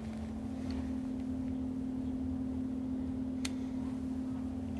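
Steady low background hum, with a single light click about three and a half seconds in.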